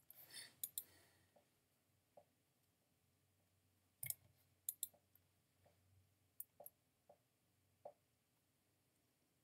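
Faint, sparse clicks of a computer keyboard and mouse, about a dozen spread irregularly, with a short scuffing noise just at the start.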